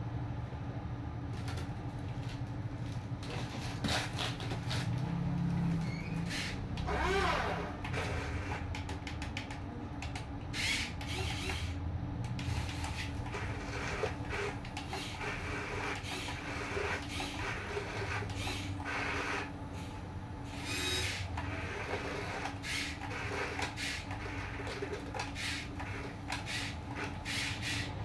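Huina radio-controlled toy construction machines running: small electric motors and plastic gearboxes whirring in short spells under a steady hum, with clicks and scraping as a wheel loader moves in sand.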